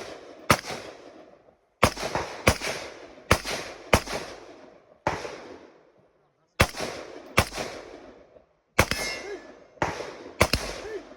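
Gunfire from a competition shooting stage: a string of about eleven shots fired at uneven intervals, from half a second to a second and a half apart, each followed by a long echoing tail. One shot late in the string is followed by a brief metallic ringing.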